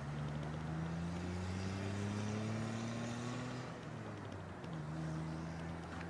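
Motorcycle engine running while riding, its note climbing steadily for about three and a half seconds as it gathers speed. The pitch falls back about four seconds in, then starts climbing again.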